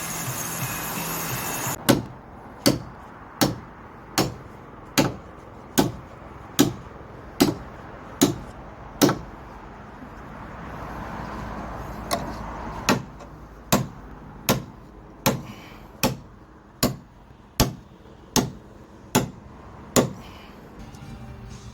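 Hammer blows struck at an even pace, about one every 0.8 seconds, in two runs of about ten strikes with a pause of a few seconds between them.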